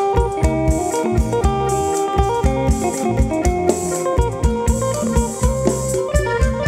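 Instrumental band music: electric guitar lines over a steady, even drum-kit beat, with no singing.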